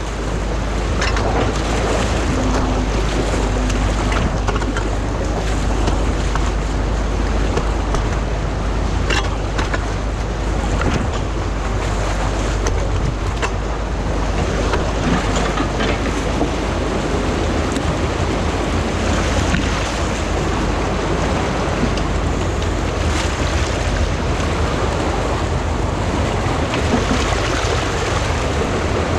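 Stream water pouring steadily over a concrete weir and churning into white water below, running high with the water backed up behind a beaver dam being let go. A steady low rumble runs underneath, with a few faint knocks.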